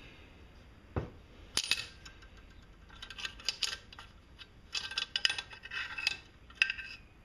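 Steel valve tappets of a small Briggs and Stratton L-head engine clinking and rattling against the block as they are worked out by hand. A single dull knock comes about a second in, followed by several clusters of short metallic clinks.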